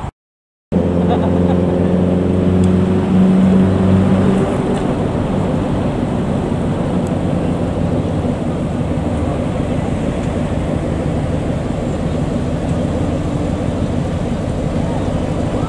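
Fire department air/rehab unit truck driving toward the camera without a siren: steady engine and road noise over passing traffic. It follows a short steady engine hum with a clear pitch that starts after a brief gap and stops about four seconds in.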